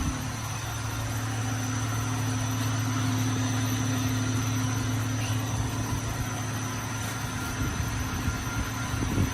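Steady low mechanical hum of machinery running at a carbonization furnace plant, such as a motor or fan, with a faint high whine above it.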